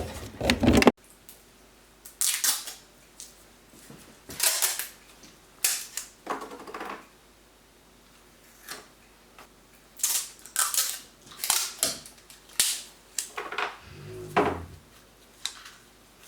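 Scattered sharp clicks, knocks and short scrapes of parts and tools being handled while fitting a dishwasher, irregular and spaced a second or so apart. A louder rustling stretch cuts off abruptly about a second in, and there is a duller thud near the end.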